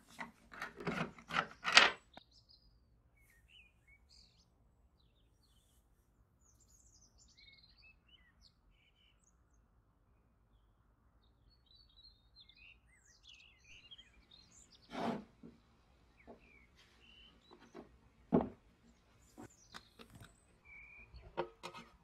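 A screwdriver turning a screw out of a metal lighter case: a quick run of small metal clicks, followed later by a few separate knocks as lighter parts are handled. Birds chirp faintly in the background.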